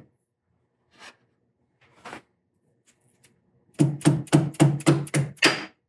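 Soft-faced mallet striking the key of a six-jaw lathe chuck, the metal ringing with each blow, to turn the scroll and draw the jaws in. A couple of light taps, then a quick run of about eight blows near the end.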